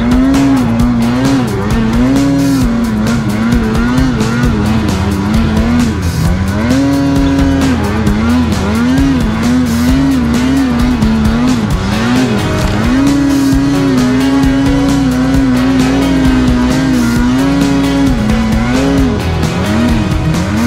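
Two-stroke snowmobile engine revving hard in deep powder, its pitch rising and falling again and again with the throttle.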